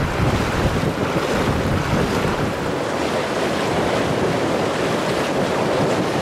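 Steady rush of wind buffeting the microphone over water washing along the hull of a tour boat under way.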